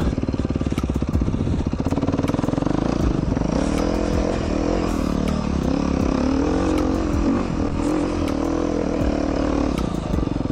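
Beta 390 RR-S dual sport motorcycle's single-cylinder four-stroke engine running under way off-road. The revs rise and fall with the throttle from about three seconds in, with scattered sharp clicks over it.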